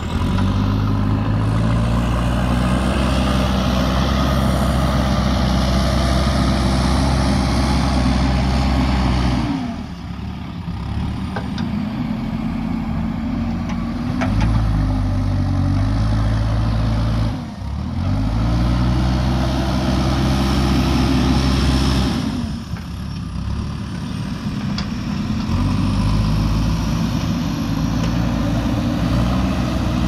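JCB 3DX backhoe loader's diesel engine running hard as the machine shifts loose soil, dropping back to a lower speed three times and picking up again after each.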